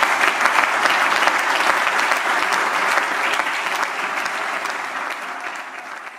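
Audience applauding, a dense steady clapping that fades out toward the end.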